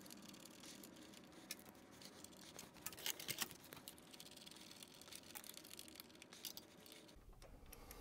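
Mostly near silence, with faint metal clicks and scraping as a hex key turns bolts into a motorcycle's footpeg bracket, a few clicks bunched about three seconds in.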